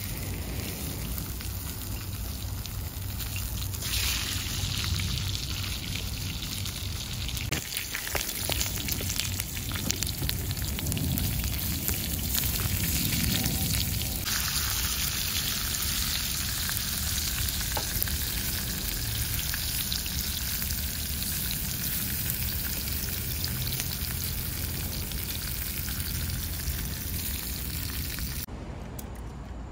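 Halved red bell peppers sizzling in grill pans on the hot top of a small portable wood stove, a steady crackly sizzle full of fine ticks. It grows louder about four seconds in and again about halfway, and drops away just before the end.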